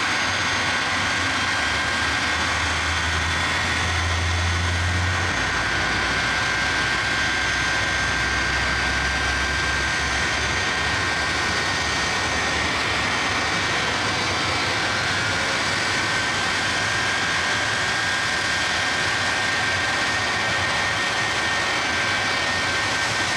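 Shockwave truck's three jet engines running steadily at a standstill, a loud roar with a steady high whine in it. A low rumble sits underneath for roughly the first ten seconds and then drops away.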